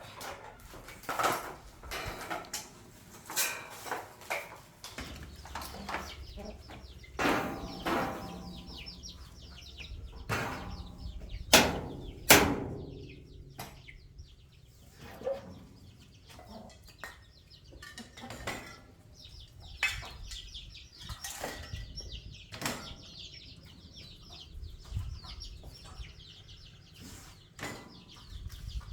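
Irregular clanks and knocks of steel pieces being handled and struck while a metal shelf is put together for welding. Two loud ringing strikes come near the middle.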